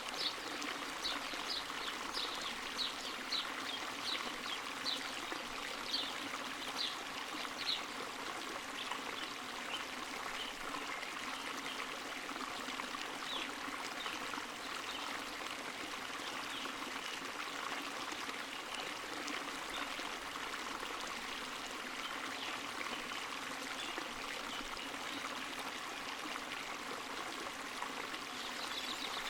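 Water running and falling from a small spring, a steady splashing trickle. Bright little splashes come through about twice a second in the first third, then thin out.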